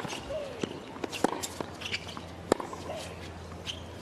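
Tennis rally on a hard court: sharp pops of racquets striking the ball, the louder hits about every second and a quarter with softer knocks between them.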